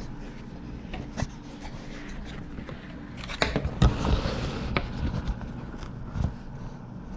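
Handling noise from the camera being picked up and repositioned on a table: scattered clicks and knocks, with a louder stretch of scraping and rubbing on the microphone about halfway through.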